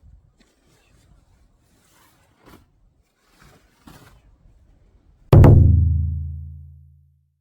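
A few faint ticks in near quiet, then a single sudden deep boom, like a big drum hit, that dies away slowly over about two seconds.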